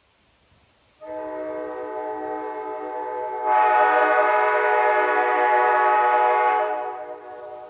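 Nathan AirChime K5HA five-chime train horn, a mix of sandcast and later bells, sounding one long chord. It comes in softer about a second in, swells much louder about three and a half seconds in, holds steady, then fades away near the end.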